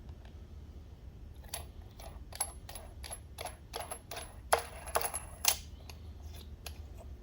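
About a dozen light metallic clinks, irregularly spaced, as a threaded vent fitting and its nut are fitted into a drilled hole in an LS engine valve cover.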